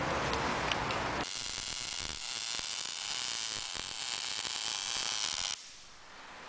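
MIG welding arc on steel under argon-CO2 shielding gas: a steady high hiss that starts about a second in and cuts off suddenly about a second before the end, as the welder lays the bead and lets off the trigger.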